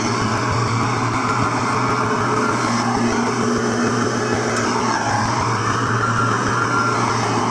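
Skid steer's diesel engine running hard and steady under load, loud through its exhaust pipe, with a faint high whine over it.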